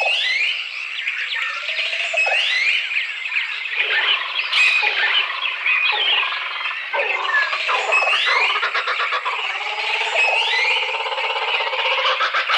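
Recorded jungle ambience: a dense chorus of tropical bird and animal calls, with rising whistled calls repeating every second or two and lower calls joining about four seconds in. The recording is thin, with no bass.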